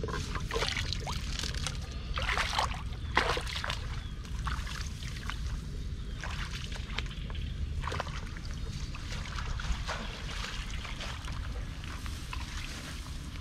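Water splashing and sloshing in irregular bursts over a steady low rumble.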